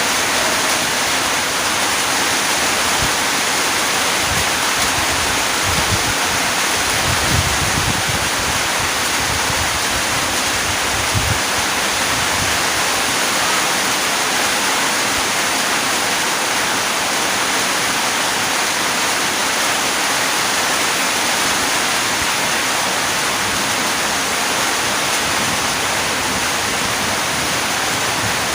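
Steady heavy rain, a dense, even hiss, with a few low thuds in the first half.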